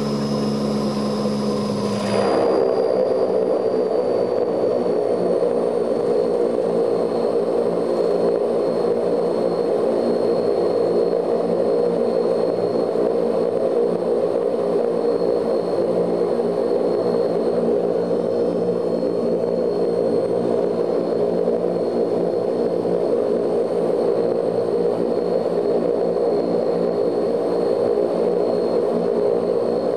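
Ilyushin Il-18's Ivchenko AI-20 turboprop engines running at low power while the aircraft taxis, heard inside the cabin. A steady drone with a high turbine whine that sinks slightly in pitch over the first few seconds. The sound changes abruptly about two seconds in.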